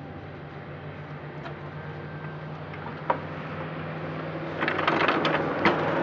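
Riding lawn mower's metal cutting deck being dragged out from under the tractor: a single knock about three seconds in, then clanking and scraping from about four and a half seconds in, over a low steady hum.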